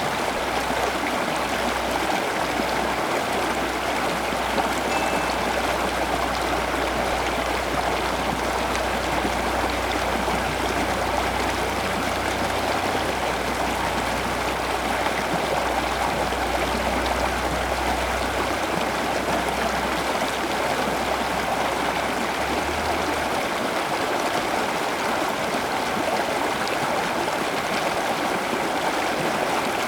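Steady running water, a continuous even splashing and trickling like a small stream or garden water feature. A low hum underneath stops about three-quarters of the way through.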